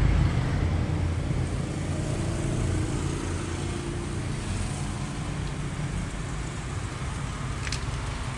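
Steady low background rumble, heaviest in the first couple of seconds, with one small sharp click near the end.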